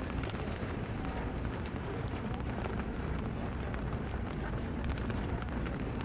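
Rain falling on puddles and wet pavement: a steady hiss of rain with many small drop ticks over a heavy low rumble.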